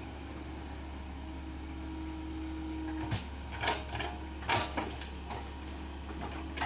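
A steady high-pitched drone of insects such as crickets over a constant low rumble, with a few short knocks about halfway through.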